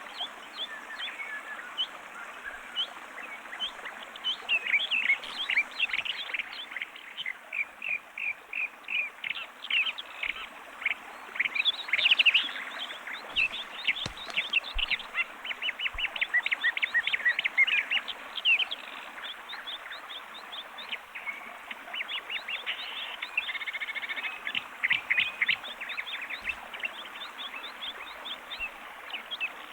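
Bird ambience sound effect: a chorus of many small birds chirping and twittering at once, a steady stream of quick, high, overlapping chirps over a faint background hiss.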